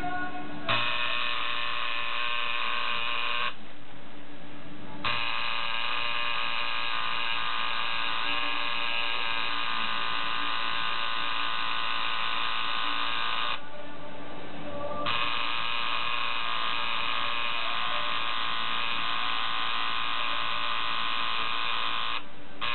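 Electric tattoo machine buzzing steadily while inking skin. It starts about a second in, then cuts out and restarts three times: twice for about a second and a half, and once briefly near the end.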